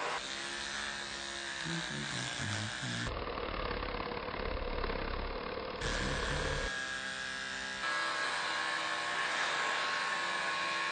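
Electric hair clippers buzzing steadily during a haircut. The sound changes abruptly a few times, about three, six and eight seconds in.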